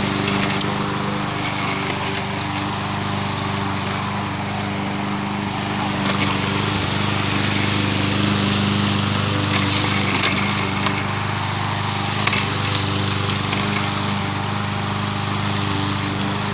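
Walk-behind gas lawn mower engine running steadily at a constant speed. A higher hiss rises over it twice, about a second and a half in and again around ten seconds.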